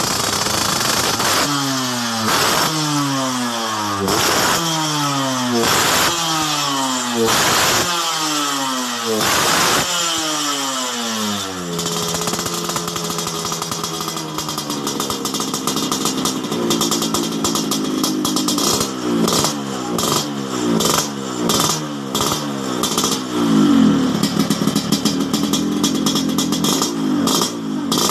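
Yamaha RX-King two-stroke single-cylinder motorcycle engine with a kolong exhaust, blipped again and again about every second and a half, the revs falling away after each blip. About twelve seconds in it settles to a lumpy idle broken by quicker, irregular throttle blips. The exhaust gives the wet, snoring 'ngorok basah' note.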